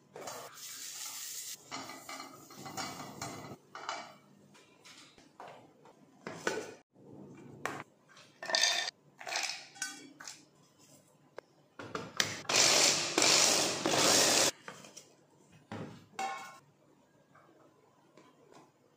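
Kitchen handling sounds: clatters and knocks of steel cookware and a plastic chopper jar as dates and nuts are moved about. About two thirds of the way through, a loud burst of about two seconds as the electric chopper grinds whole mixed nuts coarse.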